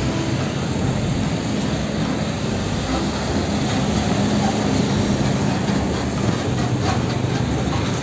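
Heavy diesel fuel tanker truck's engine running as it drives, with tyre and road noise, a steady low drone.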